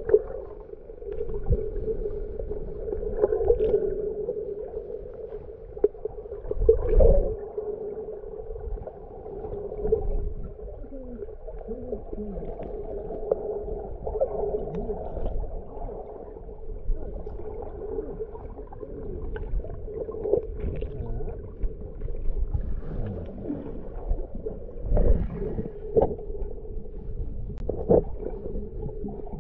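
Muffled underwater sound picked up by a submerged camera: a steady drone with scattered low thuds and knocks, the strongest about seven seconds in and again near the end.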